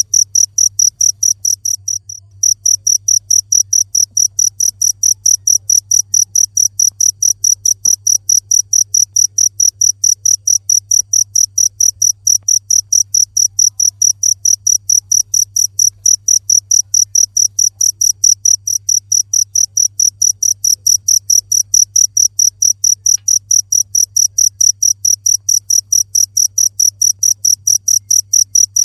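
Cricket chirping steadily in a fast, even rhythm of high-pitched pulses, with a brief break about two seconds in, over a faint low hum.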